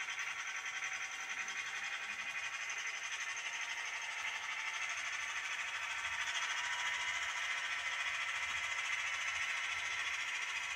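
Model railway train running on the layout: a steady high whir of the model locomotive's electric motor and its wheels on the track, growing slightly louder about five seconds in.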